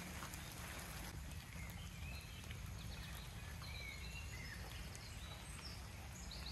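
Birds chirping a few short calls over a steady hiss of rain, with a low rumble underneath.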